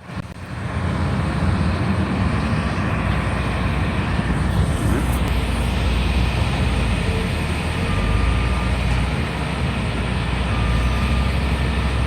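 Steady low rumble of a running vehicle or engine with a broad noise over it, fading in over the first second.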